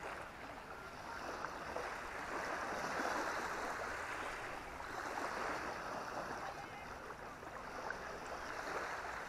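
Small waves washing up over wet sand at the water's edge, a hiss that swells and ebbs every few seconds.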